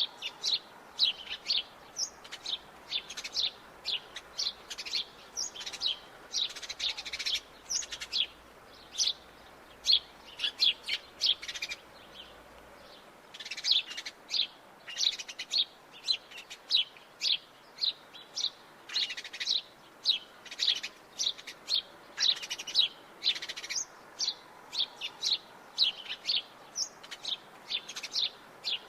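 House sparrow chirping: a steady run of short, sharp chirps, several a second, with a brief pause a little before halfway.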